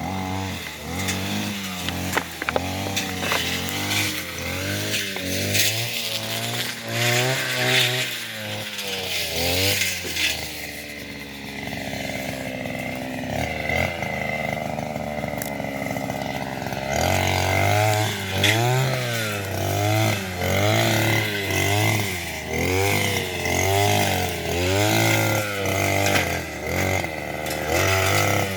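A small engine being revved in repeated quick blips, its pitch rising and falling about once or twice a second. For several seconds in the middle it settles to a steadier, lower running, then the blipping starts again.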